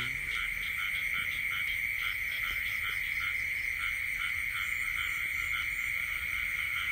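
Frogs calling in a night chorus: short calls repeated about three times a second over a steady high drone.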